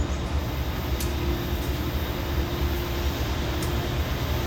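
Diesel freight train running, a steady low rumble with a faint steady hum above it.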